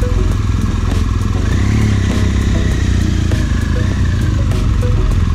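BMW R1200 GS Rallye's flat-twin boxer engine running steadily as the bike rides off slowly, with other motorcycles running close ahead.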